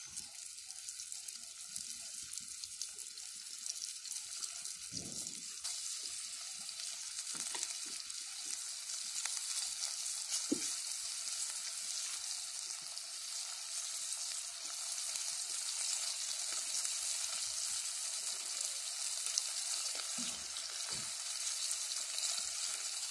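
Floured crucian carp sizzling in hot oil in a cast-iron frying pan, a steady frying hiss that slowly grows louder, with a few soft knocks.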